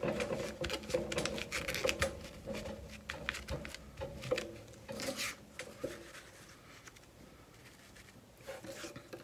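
Paper being handled, pressed down and smoothed by hand, with a tissue rubbed over it: rustling, rubbing and light taps, busiest over the first six seconds and quieter after that.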